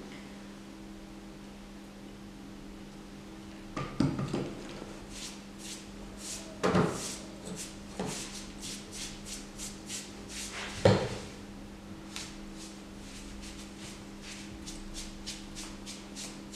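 A sponge rubbing over the surface of a plaster cast head in many short strokes, with a few louder knocks and scrapes about four, seven and eleven seconds in. A steady low hum sits underneath.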